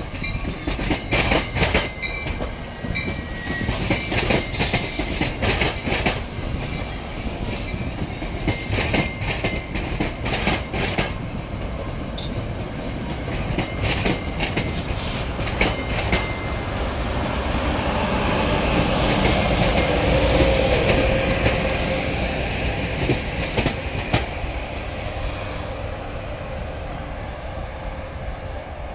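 NJ Transit passenger coaches rolling slowly past close by, their wheels clicking over rail joints in uneven clusters with a light squeal. About two thirds of the way through, a locomotive's steady hum and rumble swells and then eases off.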